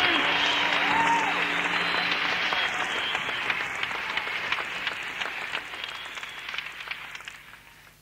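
Concert audience applauding and cheering after a live rock performance, with a few whistles or shouts in the first second. The applause fades out steadily, nearly to silence by the end.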